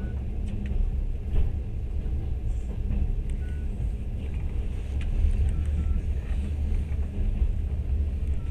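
Steady low rumble of a moving train heard from inside the carriage, with a few faint knocks.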